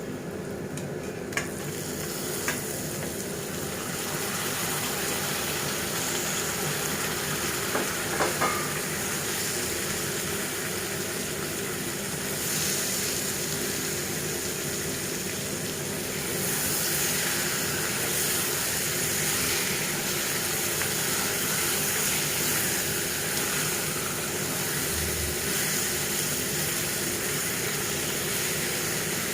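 Curry ingredients sizzling in mustard oil in a pan as they are stirred. There are a few sharp clinks of the spoon against the pan, twice in the first few seconds and again about eight seconds in.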